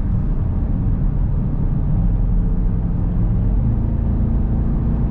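2021 Dodge Durango R/T's 5.7-litre HEMI V8 running steadily while driving, with road noise; the engine note rises slightly about three and a half seconds in.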